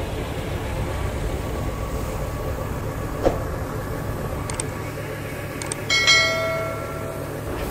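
Subscribe-button sound effects: a few mouse clicks, then a bright bell 'ding' about six seconds in that rings out for a second or so. Underneath runs the steady low hum of the tractor engine that drives the irrigation pump.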